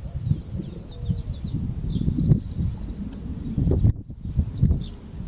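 Many birds chirping in quick, high calls over a low, gusting rumble of storm wind on the microphone.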